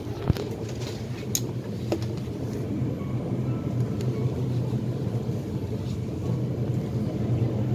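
Inside the cabin of an MTR East Rail SP1900 electric train under way: a steady low rumble, with a few sharp clicks in the first two seconds, growing slightly louder near the end.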